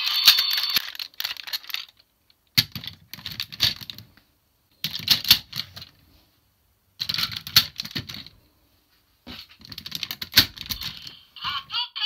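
Hard plastic toy-robot parts of the DX Pato Kaiser clicking, rattling and snapping into place as vehicle pieces are fitted onto its arms. The clicks come in five quick clusters separated by short pauses.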